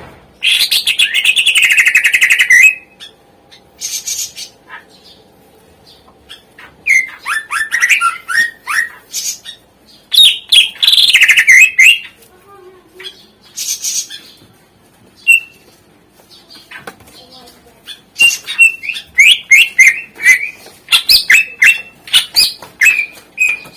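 Green leafbird (cucak ijo) singing its 'isian' song, full of mimicked phrases, in loud bursts separated by pauses. It opens with a dense rapid trill lasting about two seconds, followed by quick series of short, sharp sliding notes.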